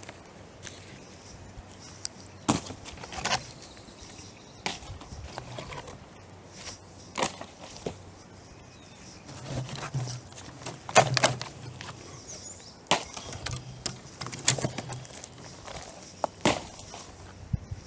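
Footsteps across a yard littered with storm-downed sticks and leaves, with scattered sharp snaps and knocks as twigs crack underfoot.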